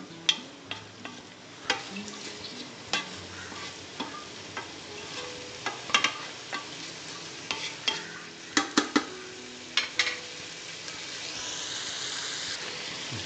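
A spatula stirring chicken pieces and shallots in a hot frying pan, with sharp clicks and scrapes against the pan over the sizzle of frying. Near the end the stirring stops and only a steady sizzle is left.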